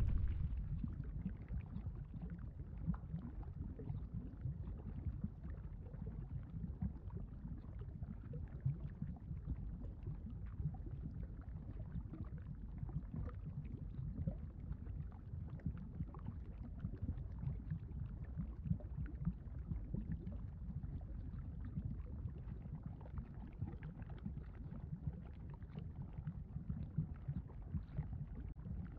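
Low, steady bubbling rumble of a lava sound effect, with faint crackles over it; it eases down in level within the first second and then holds steady.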